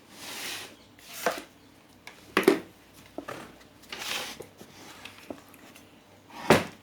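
Hands handling equipment on a workbench: several short rubbing and scraping sounds with sharper knocks about two and a half seconds in and near the end.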